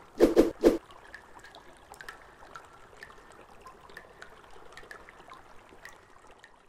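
Intro sound effects: three heavy hits in quick succession within the first second, then light, irregular clicking and trickling.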